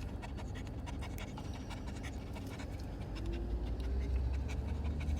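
Yorkshire terrier panting over the low, steady hum of a car in motion. A few seconds in, the car's drone gets louder and a faint tone rises slowly in pitch as it speeds up.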